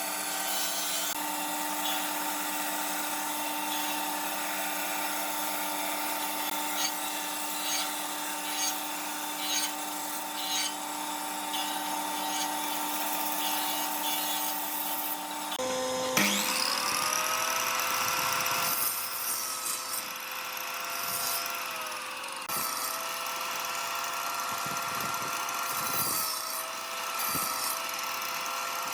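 Electric power tools running on wood. A steady motor whine gives way abruptly, about halfway through, to another motor that spins up with a rising whine, runs steadily, and sags in pitch now and then.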